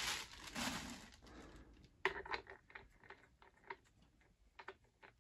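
Plastic bag crinkling as it is pulled off a handheld steam cleaner, then a scattering of faint, short plastic clicks and taps as a part is fitted onto the top of the unit.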